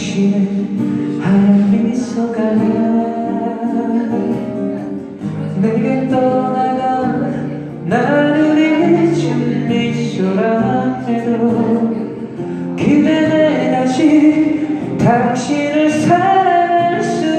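Live singing of a Korean ballad to acoustic guitar, the voice moving in long held phrases.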